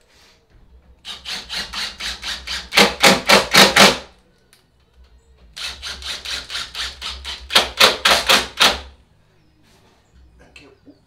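Cordless impact driver driving two long screws into a timber stair stringer: each run is about three seconds of rapid clattering, hammering harder in its second half as the screw bites and draws tight.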